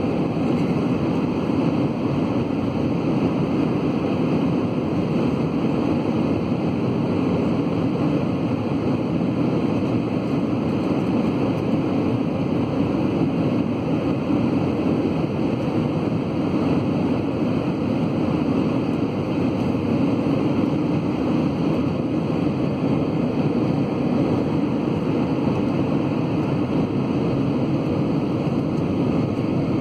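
Steady cabin noise inside an Airbus A320 in flight: the even rush of airflow and engine noise.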